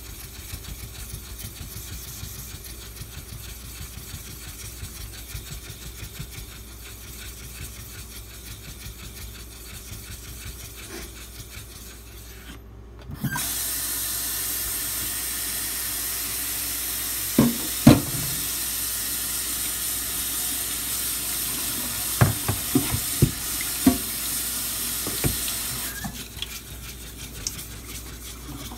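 A Nubatama Ume 2000-grit water stone being rubbed flat, a faint steady scraping of short strokes. About halfway in the scraping stops and water runs steadily from a tap for about thirteen seconds, with several sharp knocks, before the quieter rubbing resumes near the end.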